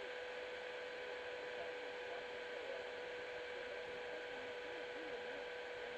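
Steady hiss with a constant high hum, and faint wavering voices in the background.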